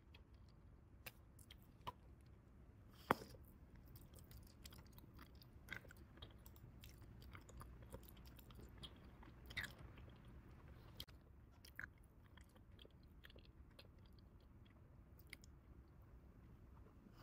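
Bubble gum being chewed with the mouth close to the microphone: soft, wet clicks and smacks at an irregular pace, with two sharper, louder snaps about three and nine and a half seconds in.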